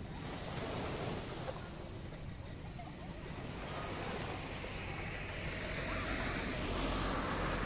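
Small sea waves washing onto a stony beach, the wash swelling louder over the last few seconds, with wind rumbling on the microphone.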